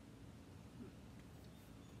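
Near silence: faint steady outdoor background, with one faint brief sound a little under a second in.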